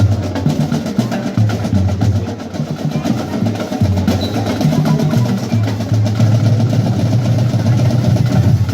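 Marching brass band playing: rapid snare drumming and rolls over loud, sustained low brass notes that shift in pitch every second or so.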